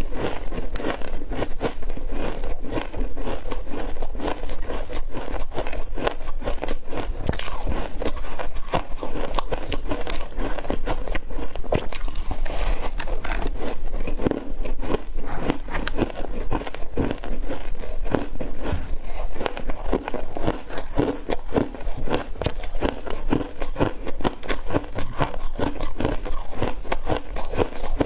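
Frozen ice coated in powder being bitten and chewed, with a dense, continuous crunching and crackling as it breaks between the teeth.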